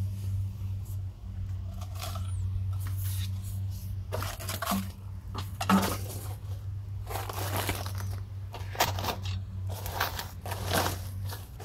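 Woven plastic sacks rustling and crinkling as they are handled and shifted by hand, in irregular bursts that start about four seconds in, over a steady low hum.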